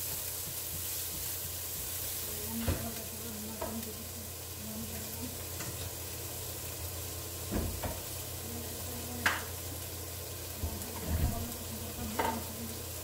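Garlic and ginger sizzling steadily in hot olive oil in a frying pan, with a few sharp knocks and clicks of a utensil now and then.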